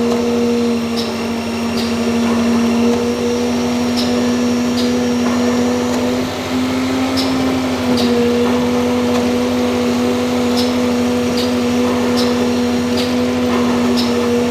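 Workshop machine running with a steady, pitched electric hum, over which faint high ticks recur about once a second.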